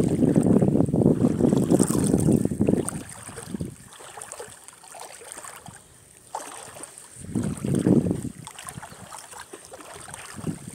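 Wind buffeting a phone microphone in gusts: one lasting about three seconds, then a quieter stretch, then a shorter gust about two-thirds of the way through.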